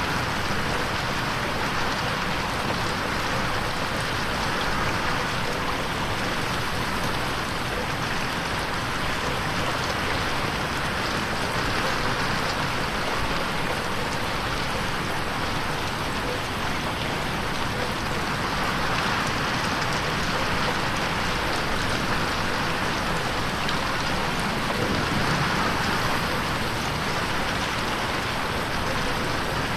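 Steady rain on a window, a dense even patter of drops that swells and eases gently.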